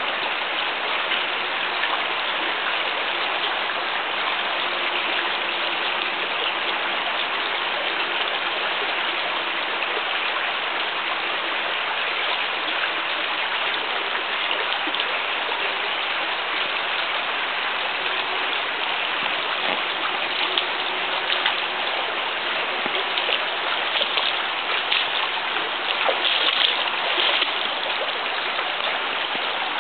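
Steady rushing noise, even and unchanging, with a few faint clicks in the last third.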